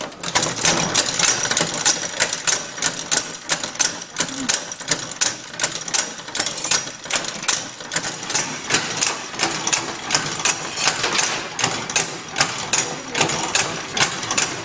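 Antique hand-cranked washing machine being turned by its handle, its mechanism clacking rapidly and rhythmically, several clacks a second, as the agitator swings back and forth.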